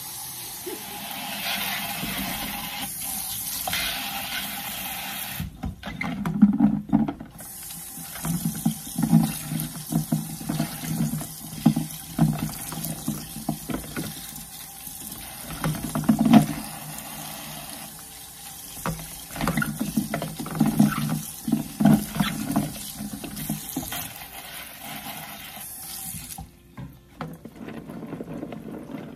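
Kitchen faucet running into a stainless-steel sink while small potatoes are rinsed and rubbed by hand in a plastic colander, the potatoes knocking and rolling against each other in the colander. The water breaks off briefly early on, then stops near the end.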